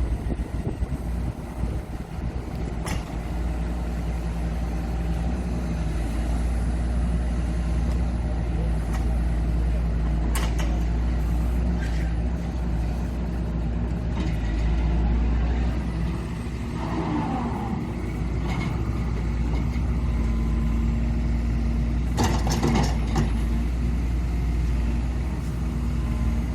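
Excavator diesel engine running steadily at a low throttle setting (RPM dial 5) during practice operating movements. A few sharp clanks come from the machine, about 3 s in, around 10 s and twice near 22–23 s.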